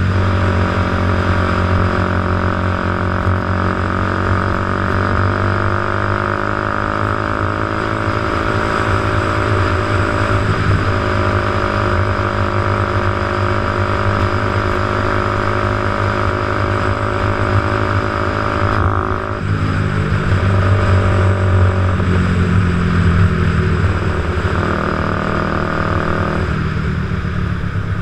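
Motorcycle engine running under way through traffic, its pitch shifting as it changes speed, with a brief break about 11 seconds in and a clear change around 19 seconds. A steady rushing noise of wind and wet road runs beneath it.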